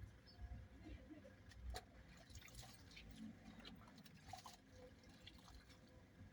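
Faint water dripping and trickling with a scattering of small clicks, close to silence.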